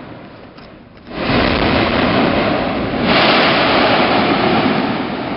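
Mount Yasur's vent erupting. A sudden loud burst of deep rushing noise comes about a second in and grows louder with more hiss around three seconds in, then slowly fades.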